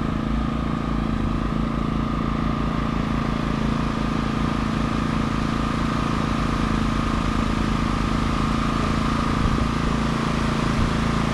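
A machine running steadily: a constant low motor hum with a steady whine on top.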